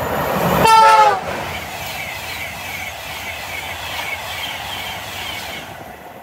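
An InterCity 225 express running through the station at speed: a short horn blast about a second in, its note falling as the train passes, then the steady rush of the passing coaches with a regular clatter of wheels over the rails, which drops away sharply near the end as the last vehicle goes by.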